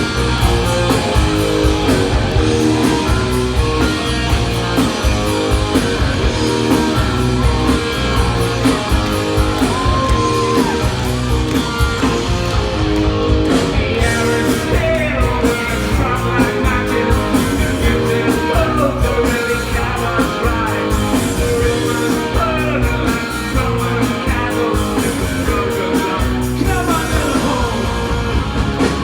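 Rock band playing live, loud: electric guitars, bass and drums with a steady beat and a lead vocal.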